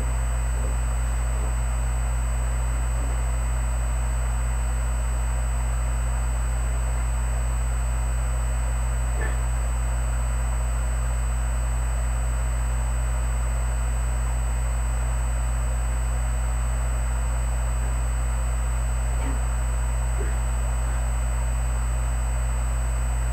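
Steady low hum with a thin high whine and hiss above it, unchanging throughout, and a few faint short sounds about nine seconds in and near the end.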